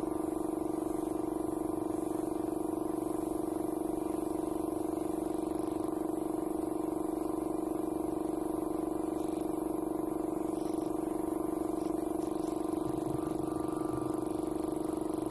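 Air compressor running with a steady motor hum and a regular pulsing beat, powering a spray gun for repainting furniture.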